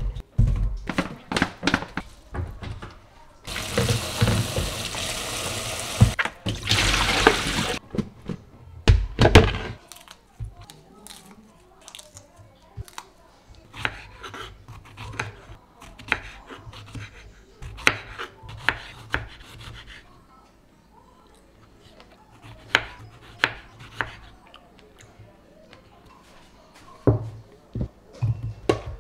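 Tap water running into a stainless steel sink for a few seconds to rinse strawberries, then a kitchen knife slicing strawberries on a bamboo cutting board, a long series of short taps on the wood.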